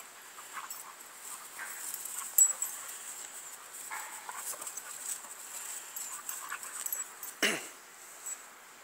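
Dogs wrestling in rough dominance play: scattered short whines and scuffles, a sharp click about two and a half seconds in, and one loud cry that falls steeply in pitch near the end.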